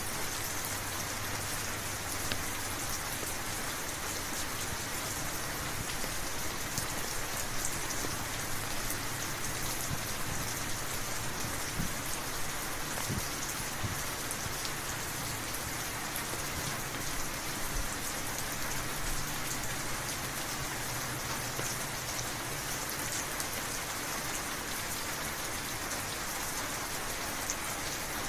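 Steady rainfall on a hard surface, an even hiss with individual drops ticking through it.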